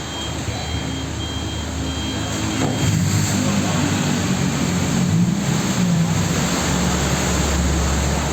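Road traffic in heavy rain: a motor vehicle's engine grows louder from about three seconds in, over a steady hiss of rain and wet road.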